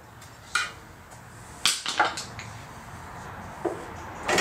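Irregular sharp metal clicks and knocks from a screwdriver prying apart the upper and lower housings of a MerCruiser Alpha One Gen 2 sterndrive, with a quick cluster of knocks near the end as the halves come apart.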